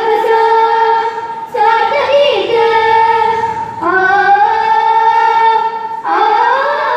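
A child's voice singing a Sanskrit song in long, held notes, in phrases of about two seconds with brief breaths between them, sliding up into the note at the start of some phrases.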